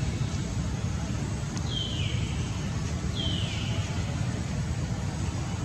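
Two short, high calls, each falling in pitch, about a second and a half apart, over a steady low background rumble.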